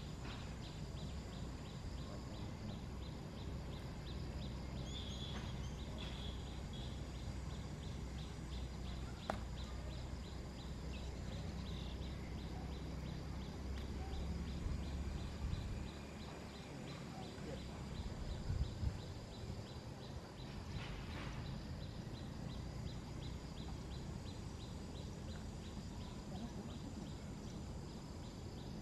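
Outdoor ambience: a steady low rumble under a regular high ticking, about two or three ticks a second, with a few short high chirps about five seconds in and a couple of sharp knocks past the middle.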